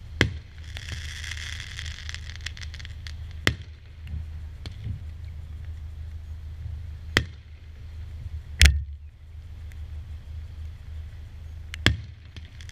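Consumer fireworks battery firing single shots: five sharp bangs a few seconds apart, the loudest about two-thirds of the way through, with crackling stars after the first shot, over a steady low rumble.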